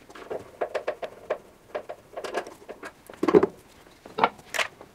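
Hand tools and screws being handled and set down in a workshop: an irregular run of small metal and plastic clicks and knocks, with a louder knock a little past the middle and two sharp clicks near the end.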